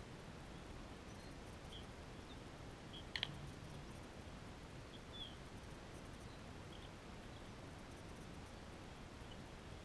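A bat hitting a ball once, a sharp crack about three seconds in, over faint outdoor background noise with scattered short, high bird chirps.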